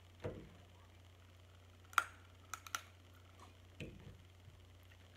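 Crab-leg shells cracking and clicking as they are picked apart by hand: a sharp click about two seconds in, the loudest, then two smaller ones just after, with soft low thumps near the start and again later.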